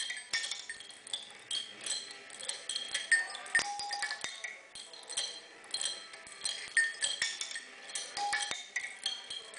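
Small steel sound-machine sculpture, an apple-peeler gear mechanism turned by a grill rotisserie motor, clinking and ringing as its rotating and swinging rods strike steel parts and small hanging bells. It makes an irregular run of sharp metallic clinks, several a second, each with a short ringing tone.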